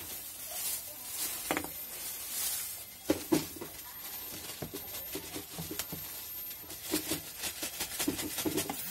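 Hot water being poured from a vacuum flask into a ceramic cup. A couple of sharp knocks about three seconds in, then scattered short clicks and knocks.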